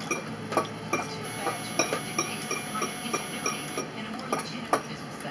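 Forks and other cutlery clicking and scraping against dinner plates during a meal, in a run of light clinks a few times a second.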